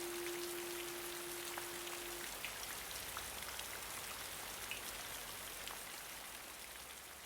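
Steady rain with scattered drops ticking, slowly fading out. A last held guitar note rings on at the start and stops about two seconds in.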